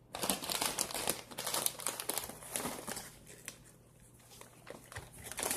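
Crinkling of a chip bag being handled, in irregular crackles that ease off for a moment a little past halfway, then pick up again near the end.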